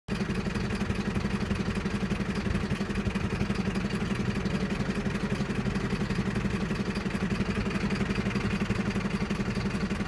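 Vehicle engine idling steadily, with a fast, even pulse.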